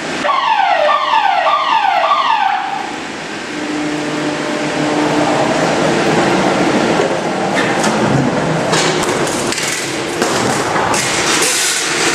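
Warning alarm of repeated falling-pitch tones, about two a second, for the first few seconds. Then a steady mechanical hum from the crash-test rig, with clattering and knocks in the last few seconds.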